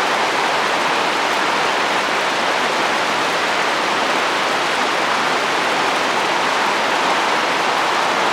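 Rainstorm with wind, rain falling on a roof: a steady, even hiss that does not change.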